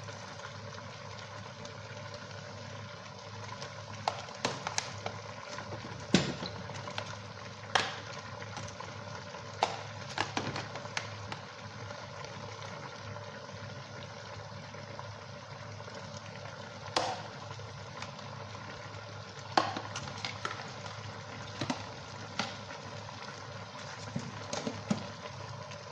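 Kitchen sounds at a pot of meat on a gas stove: a steady background hum with scattered sharp clicks and knocks, the loudest about six seconds in and twice later, as pieces of meat and utensils are handled in the aluminium pot.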